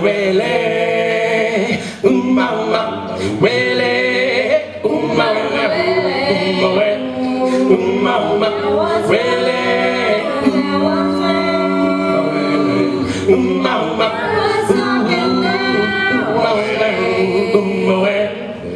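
Small mixed choir of male and female voices singing a cappella in harmony, each voice sung into a handheld microphone and amplified through PA speakers.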